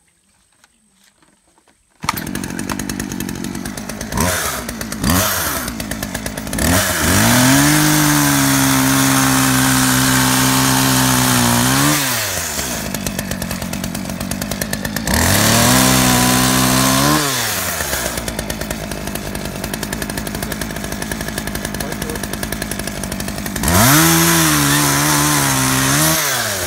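McCulloch Mac 436 two-stroke chainsaw starts running about two seconds in and idles. It is blipped twice, then revved to full throttle three times as it cuts through small tree stems, dropping back to idle between cuts; the longest full-throttle stretch comes about seven seconds in.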